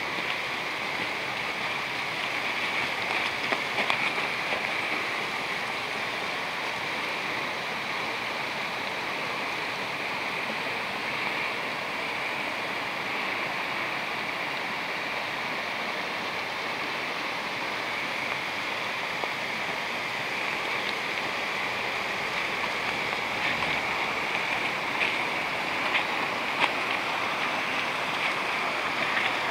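Small hillside woodland stream running and cascading down a slope: a steady rushing hiss of water. A few faint clicks sound over it near the end.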